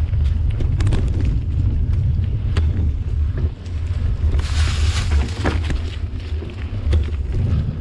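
Wind buffeting the microphone of a mountain bike's camera as it rolls down a dirt singletrack, with a constant low rumble and scattered clicks and rattles from the bike and tyres on the trail. A brief burst of hiss comes about halfway through.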